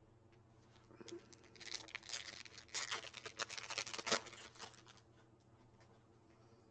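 Baseball card pack being handled: a crinkly, scratchy rustle of wrapper and cards for about three seconds, starting about a second and a half in.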